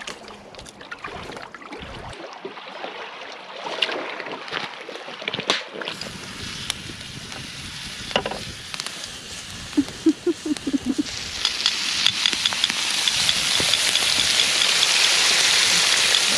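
Bacon frying in a skillet over a campfire, a steady sizzle that swells and grows louder through the last third. Before it, scattered clicks and rustles.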